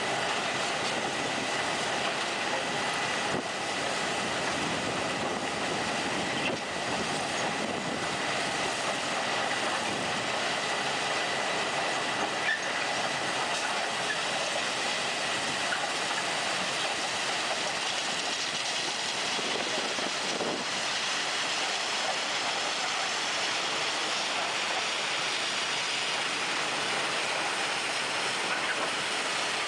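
A railway vehicle or track machine running steadily on the rails: a continuous, even rumble and hiss with a faint high whine in the first half and a few scattered clicks.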